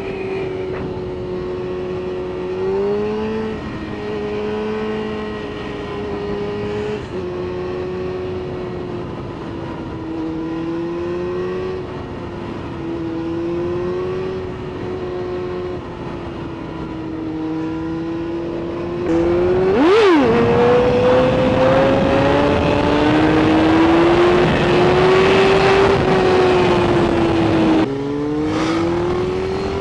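Motorcycle engine running while riding, its pitch rising and falling with the throttle. About two-thirds of the way through the pitch drops sharply and climbs back, and the engine gets louder with more wind rush as the bike speeds up; near the end the pitch drops and climbs again.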